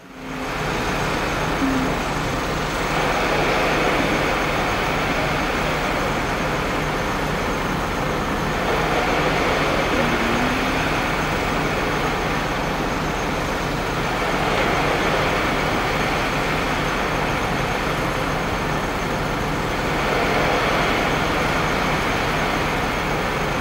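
Steady road traffic noise, swelling every few seconds as vehicles pass.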